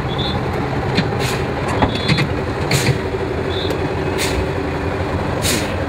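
Tatra 8x8 trial truck's diesel engine running steadily as the truck crawls over steep dirt, a low rumble with four short hisses through it.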